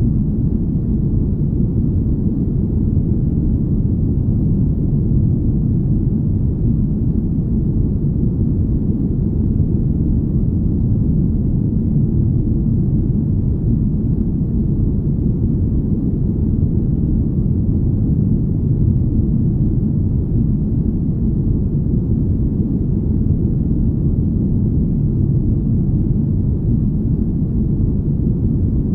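Deep, smooth rumble of steady low noise, the made-up engine hum of a spaceship cabin, like filtered brown noise. It holds even throughout, with no tones, rhythm or changes and almost nothing high-pitched in it.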